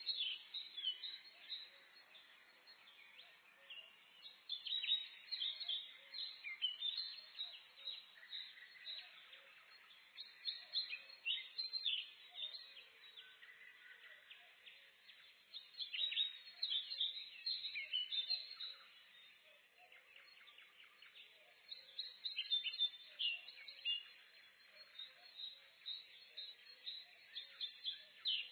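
Several small birds singing and chirping in a forest, a chorus of quick high chirps and trills that come in busy spells with quieter gaps between them.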